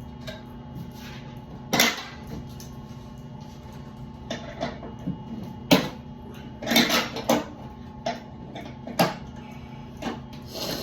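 Scattered knocks and clatter of hands and tools working on a furnace, about half a dozen sharp hits, over a steady low hum.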